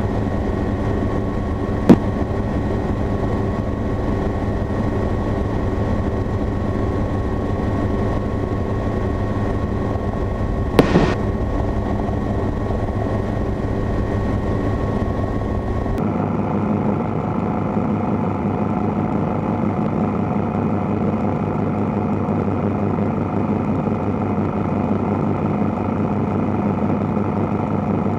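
Light helicopter in cruise flight: a steady engine and rotor drone heard from inside the cabin, with two sharp clicks about 2 and 11 seconds in. About halfway through the sound changes abruptly and loses its deep drone, leaving a thinner, higher rushing noise of the helicopter in flight.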